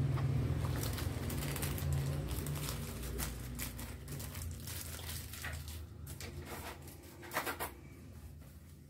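Scattered light clicks and taps, with a small cluster of louder ones near the end, as of small laptop parts and tools being handled. A low hum underneath gradually fades away.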